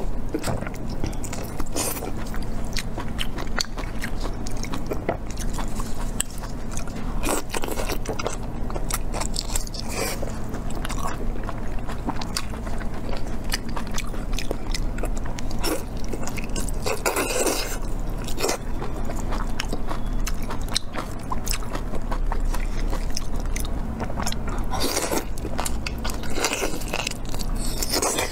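Close-miked eating sounds: a person biting into and chewing braised stuffed intestine, with many quick, irregular clicks and smacks of the mouth and food.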